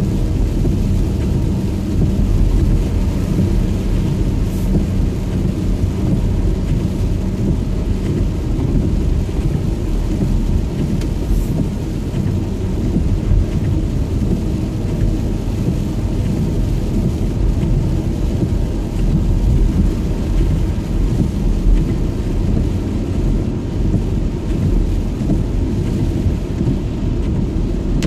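Steady low rumble of a car being driven on a rain-soaked road, heard inside the cabin: road, tyre and engine noise with rain on the car, picked up by a phone on the dashboard.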